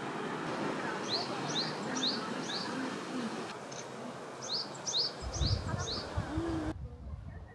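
A small songbird repeating short, quick chirps, about two a second, in two runs of four or five, over a steady outdoor hush. A low rumble comes in about five seconds in, and the sound changes abruptly near the end.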